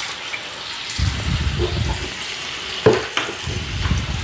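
Tap water running into and sloshing around inside the plastic dirty-water tank of a hard floor cleaner as it is rinsed out, with a single knock about three seconds in.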